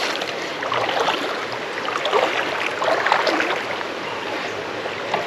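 Creek water running and splashing steadily, with scattered brief splashes through it.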